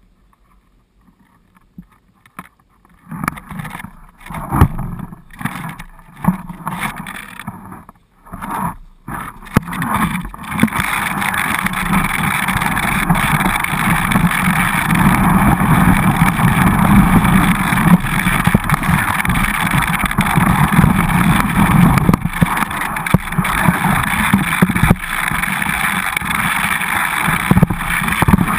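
Skis sliding and scraping over snow, with rumbling wind noise on the action camera's microphone. Separate scrapes start about three seconds in and become a steady sliding noise from about ten seconds.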